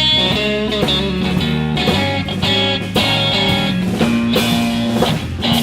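A live blues-rock trio plays an instrumental passage: electric guitar over bass guitar and a drum kit.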